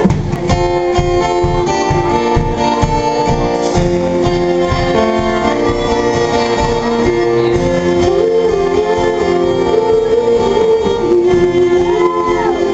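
Live acoustic band playing an instrumental intro: strummed acoustic guitar and a bowed violin melody over cello and drums, no voice yet. The violin line wavers in a run of ornamented notes past the middle and slides in pitch near the end.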